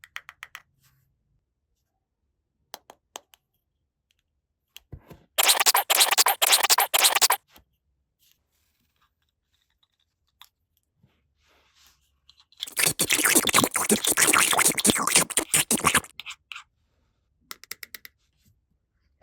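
Two long stretches of crisp crunching and scratching, one about two seconds and one about three seconds long, with a few small clicks between them.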